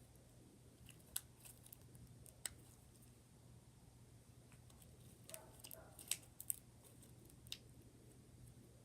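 Mostly near silence, with faint scattered clicks and pops of slime being squeezed and stretched by hand, several of them close together a little past the middle.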